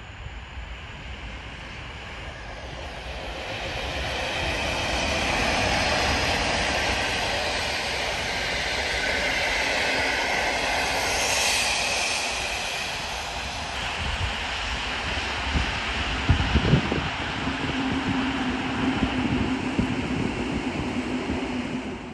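EP07 electric locomotive and its passenger coaches rolling past on the rails. The rumble builds as the train comes near, then holds steady as the coaches go by. A run of knocks and thumps comes in the second half.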